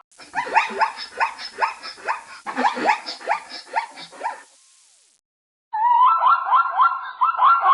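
A rapid run of yelping animal calls, several a second, each call sliding in pitch. They stop about four and a half seconds in; after a second of silence, a different fast, chattering animal call starts near the end.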